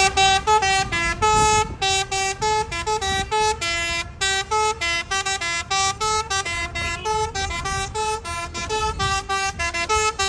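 A truck's musical horn playing a quick tune: a fast run of short, loud horn notes hopping between pitches.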